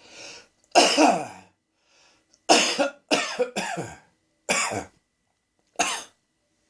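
A man's coughing fit: a short breath in, then about six separate coughs, three of them close together in the middle, spacing out toward the end. The fit began as a tickle in the throat, which he puts down to cat hair.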